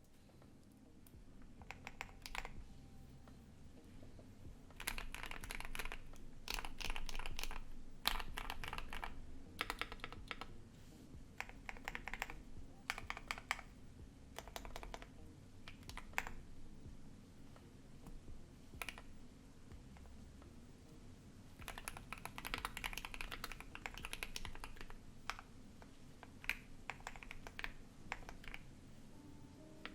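Typing on a Keychron Q1 mechanical keyboard with lubed and filmed JWK Alpaca linear switches, a polycarbonate plate and ABS keycaps, in flurries of keystrokes separated by short pauses, with added reverb. A loud desktop PC hums steadily underneath.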